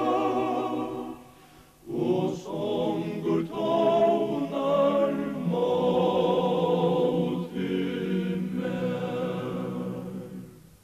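Men's double quartet singing a hymn a cappella in close harmony, in long held chords. After a short break about a second in, the line continues and ends on a held chord that fades out near the end.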